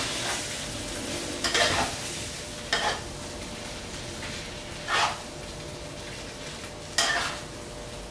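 Spiced chicken frying in oil in a pan over a low gas flame, with a steady sizzle, while it is stirred with four short scraping strokes a second or two apart.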